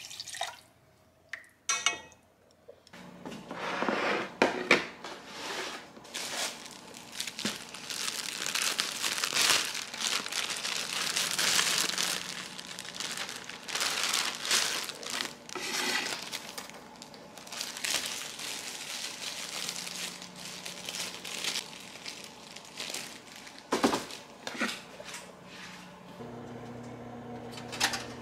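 Kitchen food-preparation noises: a long stretch of uneven rustling and watery noise with light clatter of dishes. Near the end a steady electrical hum starts up.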